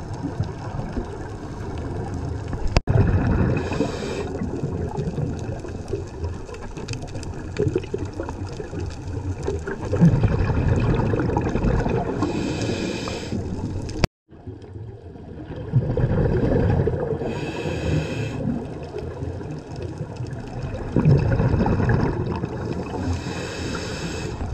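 Scuba regulator breathing heard underwater: short hisses of inhaling alternate with rumbling, gurgling bursts of exhaled bubbles, one breath every five seconds or so. The sound cuts out briefly about two thirds of the way through.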